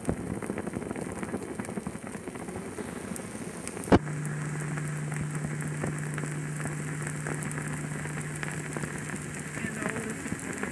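Flames crackling and popping as a burning DV camcorder records, heard through its own microphone. About four seconds in, a sharp click comes, then a steady low hum holds for about six seconds.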